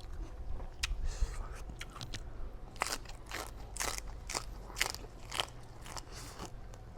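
Close-up eating sounds: crisp crunching and chewing of pounded green papaya salad, with a string of separate crunches bitten through one after another.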